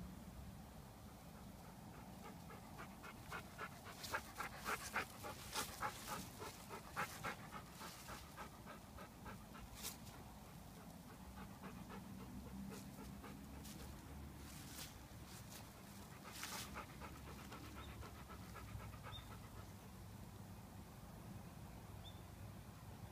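Golden retriever panting, with fast, even breaths that are loudest a few seconds in and again briefly later.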